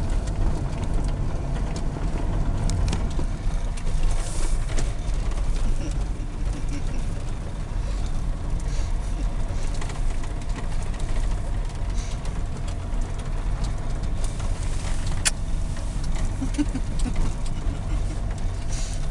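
Cabin noise of a Renault Trafic van driving slowly on a rough, patchy road: steady low engine and tyre rumble with scattered small knocks and rattles, and a sharp click about fifteen seconds in.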